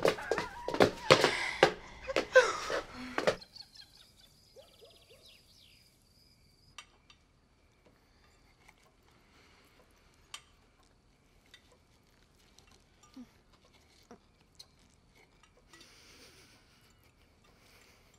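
Loud, lively voices mixed with sharp knocks for about three seconds, then the sound cuts off abruptly to a near-silent room with a few faint clicks and clinks.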